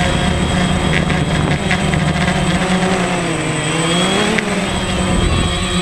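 DJI Phantom quadcopter's electric motors and propellers buzzing, heard from right on board. The pitch sags and comes back up a little past the middle.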